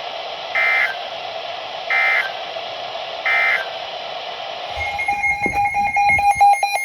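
NOAA Weather Radio static with three short, identical buzzy digital data bursts about a second and a half apart: the SAME end-of-message code closing a warning. About five seconds in, a rapidly pulsed electronic alarm tone starts beeping, the weather radio's alert signalling a new warning.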